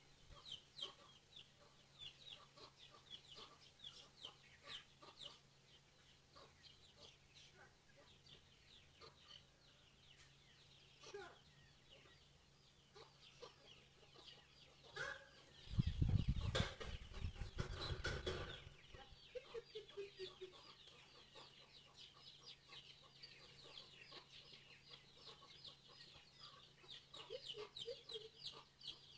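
Free-ranging chickens clucking in a yard, over a constant patter of high, rapid chirping. About halfway through, a loud low rumble lasts two or three seconds.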